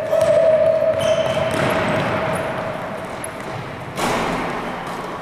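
Basketballs bouncing on a gym floor in a large echoing hall, with a steady held tone that fades out about three and a half seconds in and a sudden loud thump about four seconds in.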